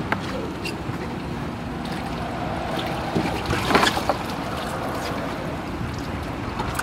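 Catfish being lifted out of a boat's live well: water splashing and handling noise, loudest between three and a half and four seconds in, over a steady background hiss with a few light clicks.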